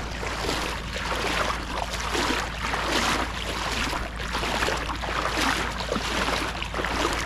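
Footsteps wading through shallow river water, a splash with each step, about two steps a second.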